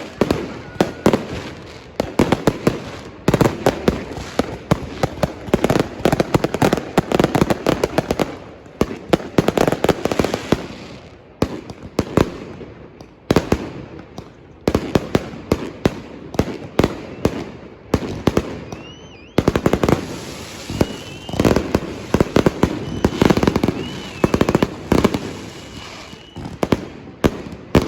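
Fireworks going off in a dense, continuous barrage of bangs and crackling, swelling and easing in waves, with a few short high whistles in the second half.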